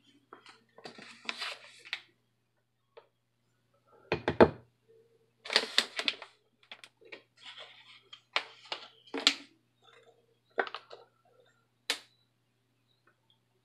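Kitchen items being handled on a countertop: irregular knocks, taps and rustles from a measuring cup, a glass mixing bowl and a plastic water bottle, with one heavy thunk about four seconds in. A faint steady low hum runs underneath.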